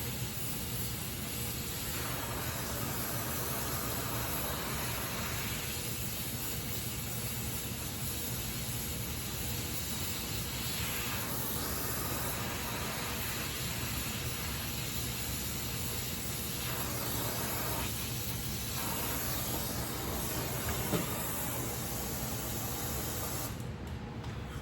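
Gas welding torch flame hissing steadily while flame welding aluminium, the hiss swelling and easing in stretches; the high part of the hiss drops away shortly before the end.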